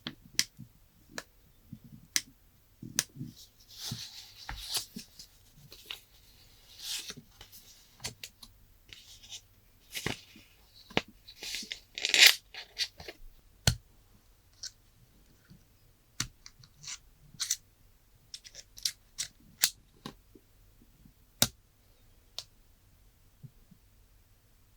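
Close-miked handling of a phone and its packaging: scattered sharp clicks and taps with short bursts of rustling and scraping, loudest about halfway through.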